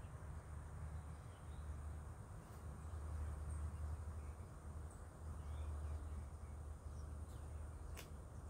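Faint outdoor farm ambience: a steady low rumble with a few faint bird chirps, and a sharp click near the end.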